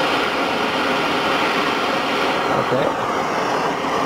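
Hand-held gas torch burning with a steady roaring hiss as its blue flame heats a steel sheet to about 250–300 °C, burning off trapped oil and moisture and raising its surface energy before painting.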